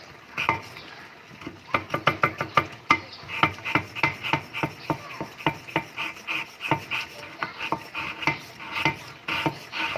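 Kitchen knife chopping a block of Javanese palm sugar (gula jawa) on a wooden cutting board: an irregular run of sharp knocks, sparse at first and then several a second.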